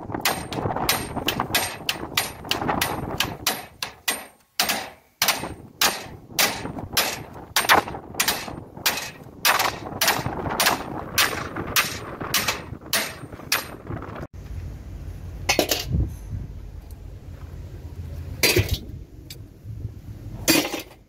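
Heavy hand hammer striking the steel steering arm of a truck's front axle at the tie-rod end joint: a fast, even run of metal-on-metal blows, about two to three a second, with one short pause. About two-thirds of the way through the rapid hammering stops, leaving a low rumble and a few separate knocks.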